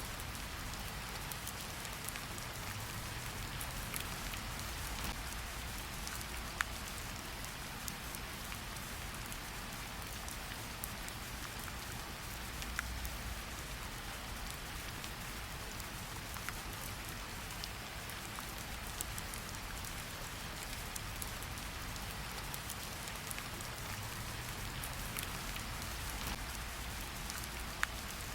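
Steady rain hiss layered with a crackling fireplace, its scattered sharp pops rising out of the rain a few times.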